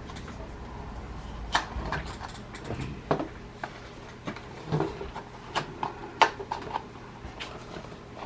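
Irregular plastic clicks and knocks as foam darts are handled and pushed into a Nerf blaster's dart clip, one every half second to a second or so.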